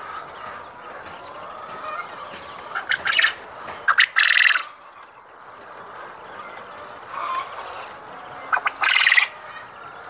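A pen of Japanese quail chattering, with two loud male crowing calls, one about three seconds in and one near the end, each a couple of short notes followed by a longer buzzy note.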